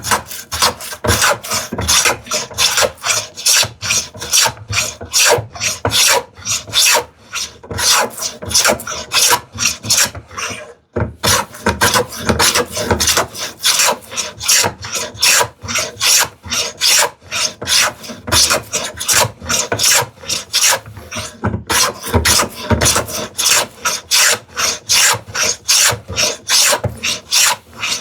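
Combination plow plane cutting a groove along the grain of a wooden drawer side: quick repeated push strokes, a few a second, each a dry rasping shave, with a few short pauses.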